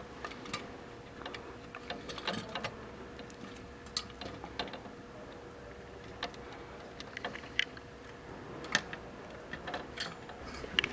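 Scattered light clicks and taps of a SilenX EFZ-80HA3 CPU cooler and its mounting hardware being handled and fitted onto a motherboard, over a faint steady hum.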